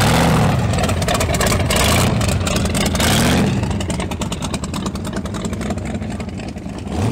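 Car engine revving, its pitch rising and falling several times over a steady rumble, with one more rev near the end.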